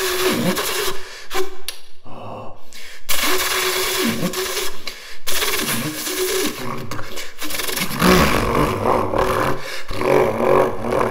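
A man's mouth imitation of a twin-turbo Lamborghini Huracán flyby, blown and buzzed through a paper towel roll: a raspy hiss with repeated swooping falls and rises in pitch, like an engine revving and shifting, broken by short pauses about two and five seconds in.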